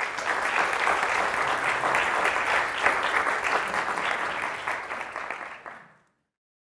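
Audience applauding in a lecture hall, a dense steady clapping that fades out about six seconds in.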